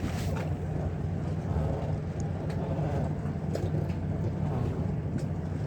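Steady low engine drone with a few light clicks over it.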